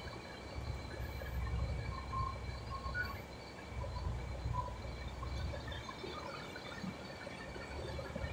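Low, steady rumble of a container truck's engine as the truck rolls slowly forward, picked up by a microphone just outside the cab window. It is louder for the first few seconds and then eases.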